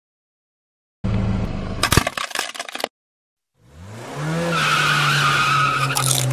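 A short burst of crunching with sharp cracks. Then, after a pause, a car engine revs up and holds a steady note while the tyres squeal.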